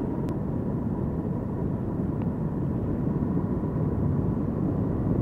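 Honda NT700V motorcycle cruising at a steady speed, heard from the rider's seat: a steady rush of wind, engine and road noise with a faint thin whine running through it.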